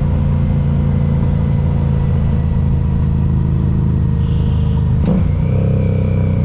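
Harley-Davidson Street 500's 500 cc V-twin engine, fitted with an aftermarket exhaust, running steadily under way at cruising speed, with a brief change in the sound about five seconds in.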